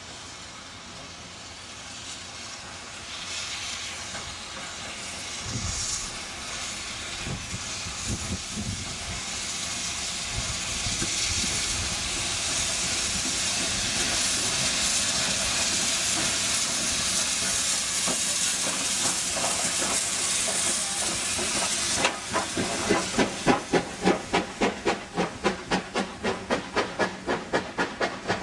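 USATC S160 2-8-0 steam locomotive passing close, its steam hiss growing steadily louder as it nears. About two-thirds of the way through, the train's wheels start clattering over the rail joints at about three beats a second as the coaches roll by.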